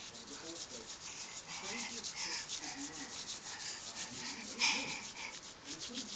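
Tissue paper being rubbed and rolled between fingers: quick rustling strokes, several a second, with a louder rustle about two-thirds of the way through.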